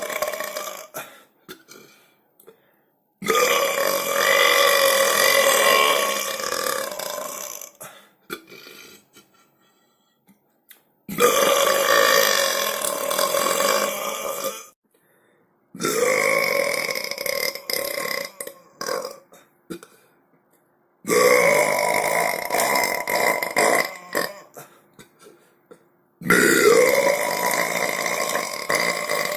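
A person belching: the end of one burp, then five long drawn-out burps of about four seconds each. Each starts suddenly and holds a steady pitch, with short silent gaps between them.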